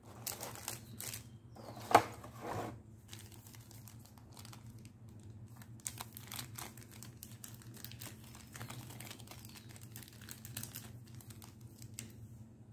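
Foil trading-card booster packs crinkling and rustling as they are pulled from a clear plastic blister tray and handled, with one loud crackle about two seconds in.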